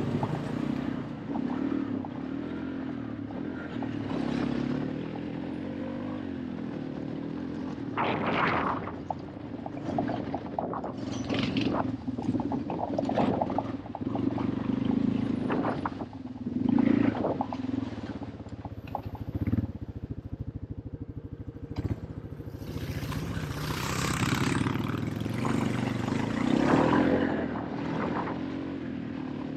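Small off-road vehicle engine running under way, its pitch rising and falling with the throttle, with several brief scraping, brushing noises over it.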